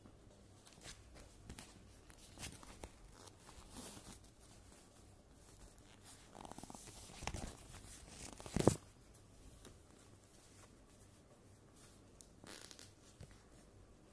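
Faint handling noise: scattered rustles and light clicks, a brief rubbing noise a little past the middle, and one sharp knock, the loudest sound, as the phone filming is picked up and shifted on the quilted blanket.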